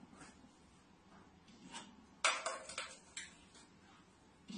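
Plastic water bottle falling off a shelf and clattering on the floor: a quick run of hard knocks a little over two seconds in.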